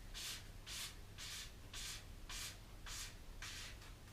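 Rhythmic rubbing or scraping, about two hissy strokes a second, evenly spaced and fairly faint, over a low background hum.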